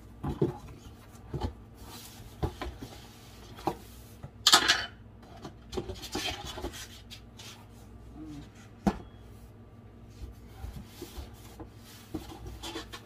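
Cardboard egg case being opened by hand: its flaps scrape and rub, with scattered light knocks as the egg trays inside are handled. A louder scraping rush comes about four and a half seconds in, and a sharp knock near nine seconds.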